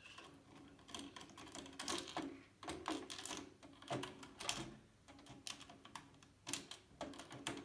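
Irregular clicks and light taps from computer parts being handled in a PC case during motherboard installation.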